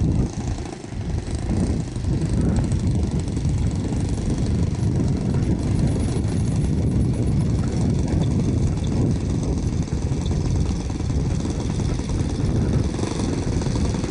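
A Saito 1.25 four-stroke glow engine on a model Citabria running steadily at low throttle as the plane taxis on the runway.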